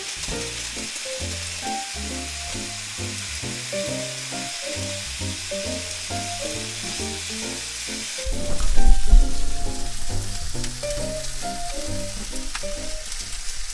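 Background music, a simple melody with bass notes, over a steady sizzling hiss. From about eight seconds in, a loud low rumble joins it.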